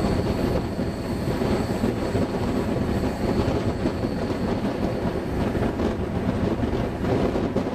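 Passenger train running along the line, heard from an open carriage window: a dense, steady rumble of wheels on rail mixed with rushing air, with a faint high squeal from the wheels on the curve.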